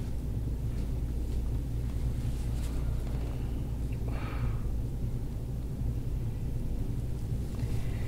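Steady low hum, with one brief, faint, softer sound about four seconds in.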